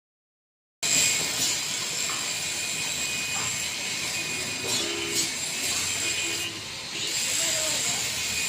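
Electric arc welding: a steady crackling hiss with occasional sharper pops, starting about a second in.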